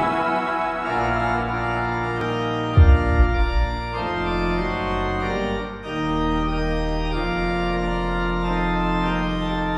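Organ music: slow, sustained chords over a held bass note, changing every second or two.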